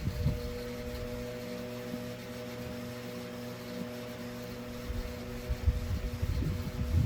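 Westinghouse 12-inch table fan's two-speed shaded-pole motor running on high, a steady hum with a few held tones. A low, unsteady rumble joins in from about five seconds in.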